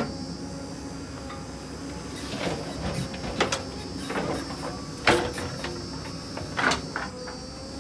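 JCB 3DX backhoe loader's diesel engine running steadily as the backhoe digs soil and lifts a loaded bucket, with a series of sharp knocks and clatters from the bucket and earth, the loudest about five seconds in.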